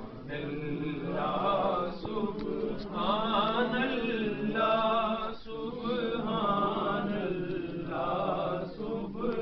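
Male voice chanting a Punjabi naat, a devotional song in praise of the Prophet, in a melodic sung line over a steady held tone.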